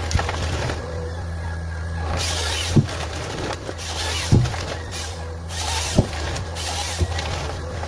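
Forestry harvester working: its diesel engine runs steadily underneath, with several bursts of hiss and about four sharp knocks as the harvester head handles the wood.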